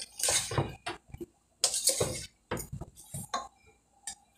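A black slotted plastic spoon stirring spinach and tomatoes in a metal stockpot, with irregular scrapes and clinks against the pot. The stirring stops near the end with a few light taps as the spoon is left in the pot.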